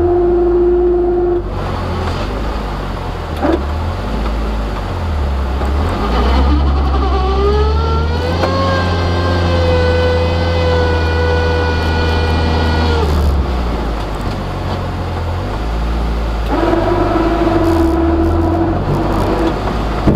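The engine and drivetrain of an Oreion Reeper Apex Sport UTV (1100cc) running while it pushes snow with a 6 ft blade. A whine rises in pitch about six seconds in, holds for several seconds and then drops away. A steadier, lower whine sounds briefly at the start and again late on.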